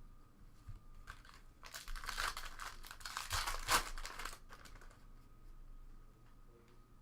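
Wrapper of a trading-card pack being torn open and crinkled, a dense crackle lasting about three seconds from roughly two seconds in.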